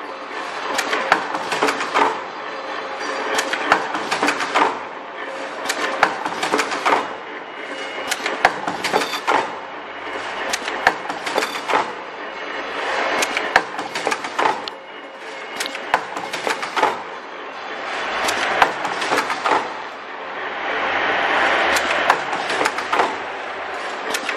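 Richpeace automatic mask earloop welding machine running: rapid, uneven clacking and clicking of its pneumatic cylinders and mechanisms, over a hiss that swells and fades.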